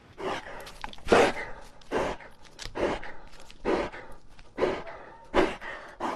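Jack Russell terrier panting with its tongue out, a steady rhythm of breathy puffs a little over one a second.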